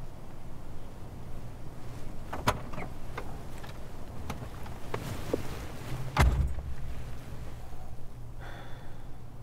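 Car door opened with clicks of the handle and latch, a rustle as someone slides onto the seat, then the door shut with one heavy, deep thump about six seconds in.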